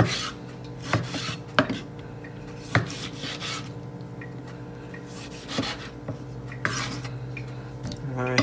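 Kitchen knife dicing a tomato on a plastic cutting board: a few sharp knocks of the blade on the board at irregular spacing, with light scraping between, over a steady low hum.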